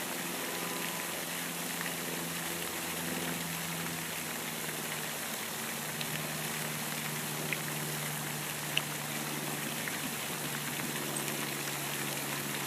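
Steady hiss with a faint low drone like a distant engine running underneath, and two small light clicks in the second half.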